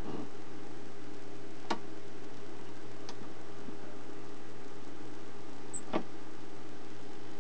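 N-gauge model train motor running under PWM control, giving a steady hum of several fixed tones. Three sharp clicks come through it, at about two, three and six seconds in.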